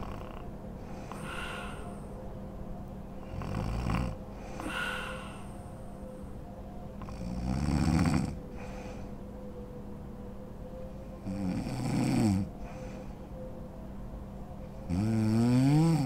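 A sleeping woman snoring: four loud, rasping snores about four seconds apart, with breathy exhales between them. The last snore rises in pitch.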